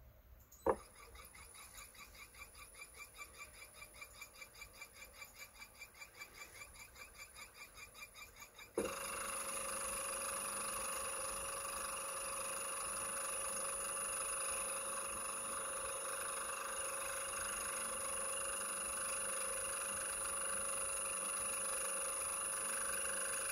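Electric motor driven by a Mitsubishi FR-E800 frequency inverter. After a sharp click, it runs slowly with a faint pulsing hum about five times a second. About nine seconds in, it steps up to a steady, louder whine with a high, thin carrier tone as the drive runs it at 50 Hz.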